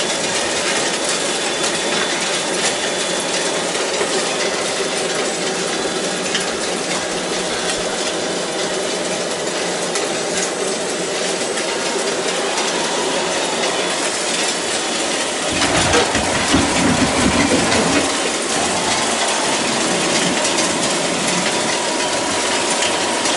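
Remote-controlled model construction machines working, with a steady whine of small electric motors and gears and the clinking and scraping of material, growing louder for a couple of seconds about sixteen seconds in.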